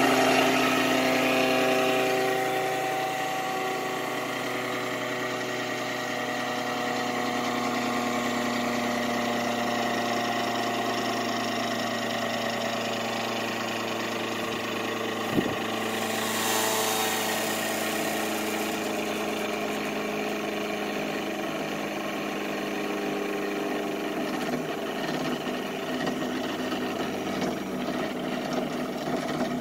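Montgomery Ward electric cream separator's motor and spinning bowl running with a steady mechanical hum and whine. A couple of seconds in the sound drops in level and part of the tone falls away, and its pitch then slowly sinks. There is a single sharp click about fifteen seconds in.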